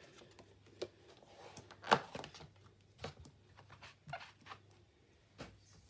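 Hands handling card pieces and clear acrylic stamping blocks on a craft desk: scattered light taps, clicks and paper rustles, the sharpest a knock about two seconds in.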